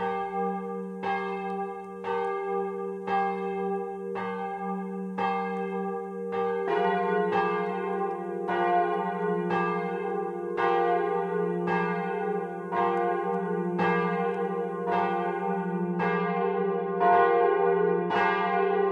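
Church bells ringing, struck at a steady pace of about once a second, with their hum lingering between strokes. About seven seconds in, a second bell joins and the strikes come faster.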